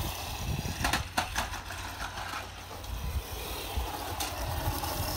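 Electric Tamiya radio-controlled off-road car running over loose gravel: a steady crunch and scatter of stones under the tyres, with a few sharp clicks.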